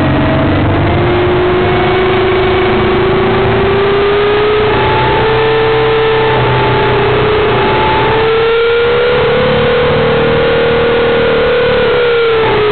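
Electric motor and propeller of an RC Edge 540 model plane whining in flight, heard from a camera in its cockpit. The pitch dips near the start, climbs about five seconds in, peaks a little past the middle and falls again near the end, with the throttle. Loud rushing air noise runs under it.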